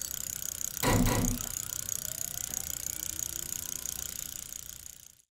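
Logo sound effect: a fast, steady mechanical ticking with one heavy hit about a second in, fading out near the end.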